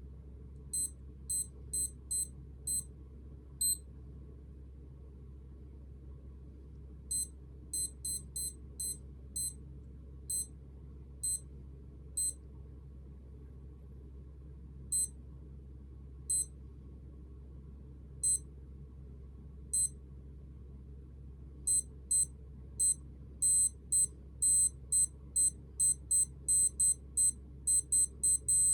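Digital sports watch beeping as its buttons are pressed to set the time. Each press gives one short, high beep. They come in irregular runs of several with pauses of a few seconds, and follow each other rapidly in the last several seconds.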